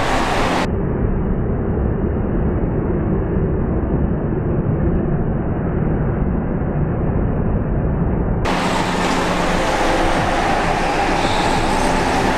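Go-kart engines running steadily as karts lap the track, a continuous drone. Just under a second in the sound turns muffled, with the top end cut off, and it turns clear again after about eight seconds.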